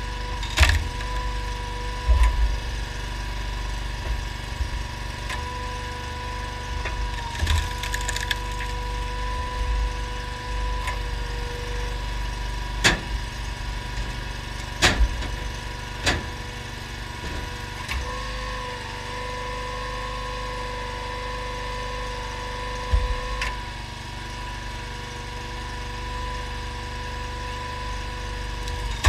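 Homemade hydraulic log splitter driven by a Honda GX690 V-twin engine, running steadily with a constant whine, while firewood rounds crack and split under the wedge several times. Each split comes as a sharp crack over the steady engine and pump sound.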